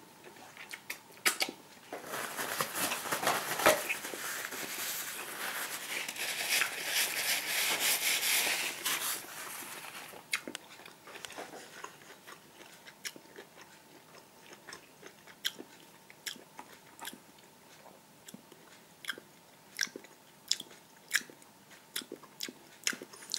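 A person biting into and chewing a grilled sausage held in the hand: several seconds of dense crackly chewing noise, then scattered wet mouth clicks.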